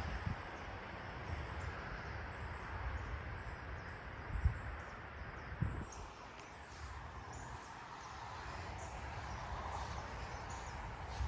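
Wind buffeting the microphone, a fluctuating low rumble under a rustling hiss, with two short thumps near the middle.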